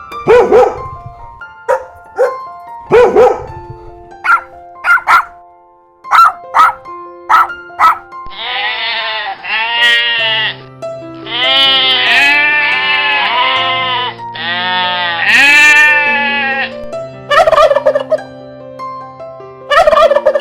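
Turkeys gobbling: a string of short calls, then long, rapid rattling gobbles from about 8 to 17 seconds in, and short calls again near the end, over background music with held notes.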